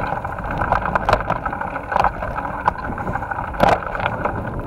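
Mountain bike riding over a dirt forest singletrack: a steady rush of wind and tyre noise, broken by several sharp knocks and rattles over bumps.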